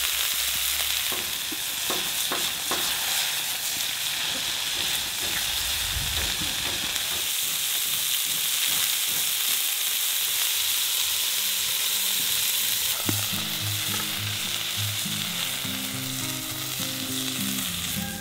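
Burger patties sizzling loudly in their rendered fat on a hot round steel griddle, a dense steady frying hiss, with a few sharp clicks in the first few seconds. Background music comes in quietly about two-thirds of the way through.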